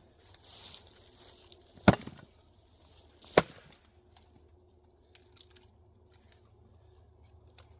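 Two sharp axe strikes splitting Douglas fir firewood, about a second and a half apart, followed by a few faint ticks.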